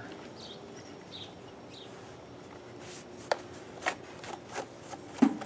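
Gloved hands handling a vinyl dryer vent hood and its flaps: a few sharp plastic clicks and taps in the second half, over a faint steady hum.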